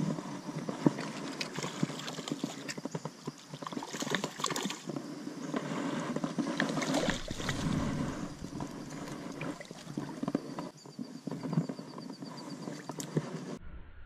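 Water splashing, with irregular knocks and clicks, as a small hooked fish is reeled in and scooped into a landing net.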